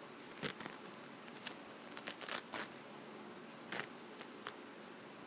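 Crinkling and tearing of a U by Kotex sanitary pad's individual wrapper as it is peeled open, in short scattered rustles.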